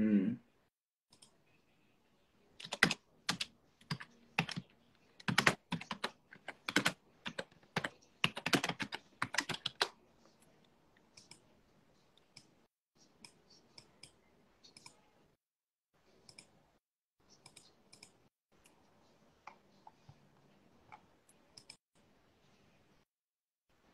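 Computer keyboard keys tapped in an irregular run of sharp clicks. They are loud and close together for the first ten seconds or so, then sparser and fainter.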